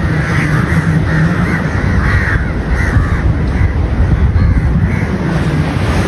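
Crows cawing over and over in short repeated calls, over a steady low rumble.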